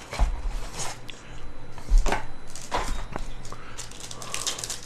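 Trading card boxes and packs being handled on a table: a handful of light knocks and some rustling.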